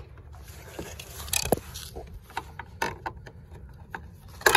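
Scattered small clicks and rubs of a plastic wiring-harness connector being handled and worked through the hole in a car door's mirror mount, with the sharpest click near the end.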